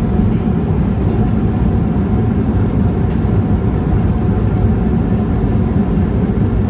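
Steady low rumble inside a Boeing 737's passenger cabin as the jet taxis after landing: the engines at idle and the wheels rolling over the concrete taxiway.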